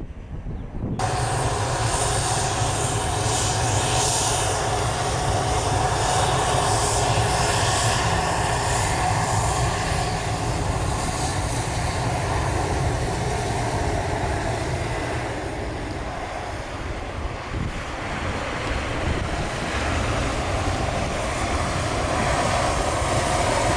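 Ryanair Boeing 737-800's jet engines during its landing: a continuous jet roar with a steady whine through it. It sets in abruptly about a second in, eases somewhat after about fifteen seconds, then swells again near the end.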